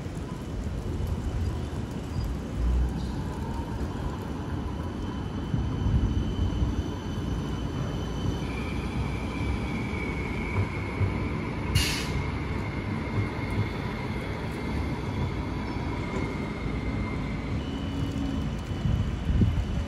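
Newcastle light rail tram, a CAF Urbos 100, running past on street track: a low rumble, with a steady high whine through the middle of the pass and a brief sharp hiss about twelve seconds in.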